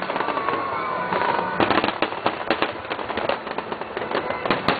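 Fireworks display going off: dense rapid crackling and sharp bangs, with a whistling shell falling slowly in pitch near the start.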